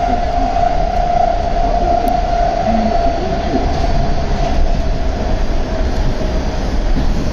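Baltimore Metro Subway train running at speed, heard from inside the car: a steady rumble of wheels on rail with a continuous high whine that softens slightly near the end.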